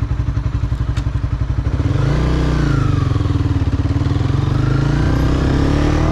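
Honda CBR250R's single-cylinder engine idling with an even pulse, then pulling away about two seconds in, its note rising and falling as it runs under load before easing back near the end.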